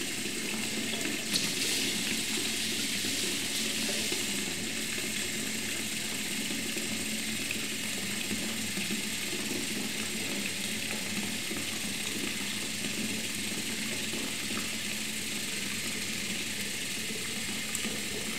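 Tap water running steadily into a bathroom washbasin with a person's head down in it, with a short knock about a second and a half in.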